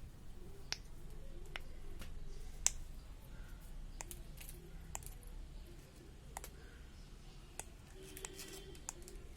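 Faint, irregularly spaced light clicks and taps, about a dozen, from a small plastic keychain pop-it toy being handled.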